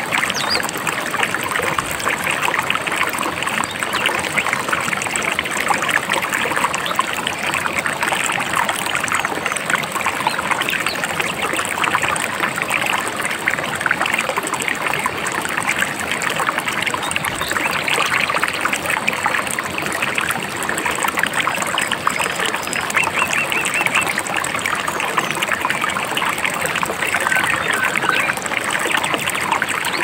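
A babbling river: water trickling and splashing in a steady, dense rush.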